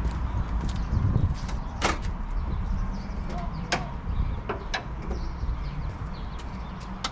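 Wind rumbling on the microphone, with a few sharp, separate metallic clicks from a socket and ratchet as the 13 mm strut top-mount nuts under the bonnet are loosened.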